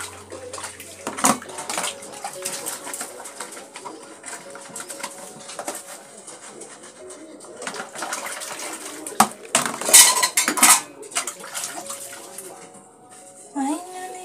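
Dishes being washed by hand in plastic basins: plates and bowls clattering and knocking against each other while being scrubbed with a soapy cloth, with the loudest clatter about ten seconds in.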